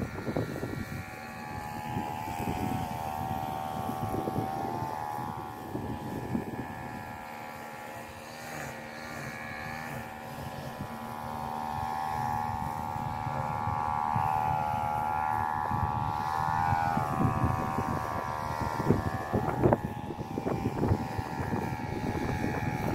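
A steady engine drone whose pitch wavers slowly, over irregular rustling and light knocks.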